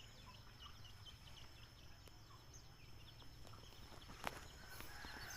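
Quiet outdoor ambience: small birds chirping in many short, high, falling cheeps over a steady high-pitched tone, with one sharp click about four seconds in.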